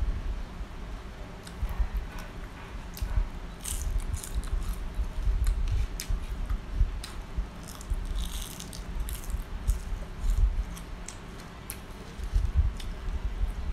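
Close-up chewing of crisp fried grasshoppers: a low, steady jaw thudding with sharp crunching clicks, in clusters about four seconds in and again around eight to nine seconds in.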